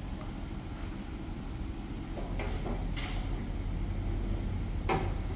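Heavy truck's diesel engine running, a steady low rumble, with a few short sharp knocks over it in the second half.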